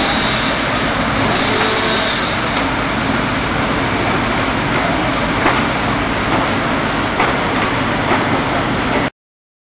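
Fire engines' engines running, a steady loud noise with a low hum and a few faint clicks, which cuts off abruptly about nine seconds in.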